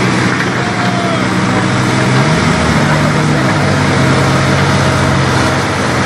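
John Deere 260 skid steer's diesel engine running under load. Its pitch climbs a little over two seconds in, then settles into a steady note.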